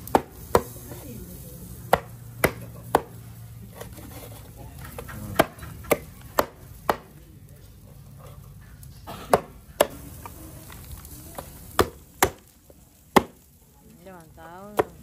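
Knife chopping barbecued chicken on a round wooden chopping board: sharp knocks of the blade striking the wood, about fourteen in all, coming irregularly in small groups of two to four.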